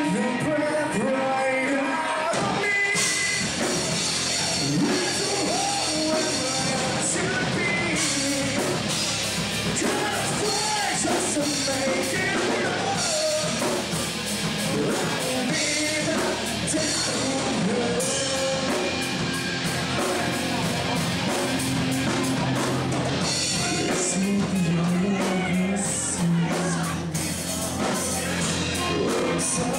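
Live rock band playing, with a singer, drum kit and cymbals.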